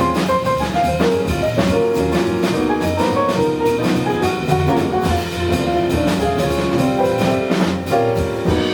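Live jazz band playing, with a drum kit keeping time under a moving melodic line.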